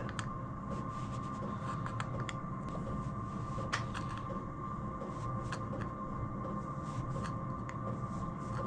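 Hand pliers working the edge of a thin aluminium panel, giving scattered light clicks and taps at irregular moments over a steady electrical hum.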